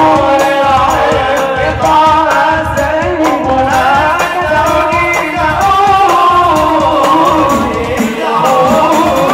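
Sholawat sung in Arabic by men's voices over hadrah rebana frame drums beaten in a steady rhythm.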